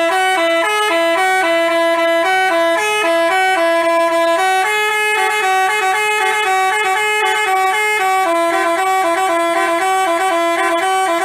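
Bus 'telolet basuri' multi-tone horn playing a melody: a quick run of stepping horn notes sounding in two parallel voices. It starts abruptly and cuts off near the end.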